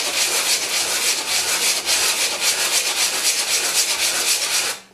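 A piece of walnut rubbed by hand across coarse sandpaper stuck to a flat board in figure-of-eight strokes: a steady scratchy hiss that stops abruptly near the end. The wood's face is being sanded flat.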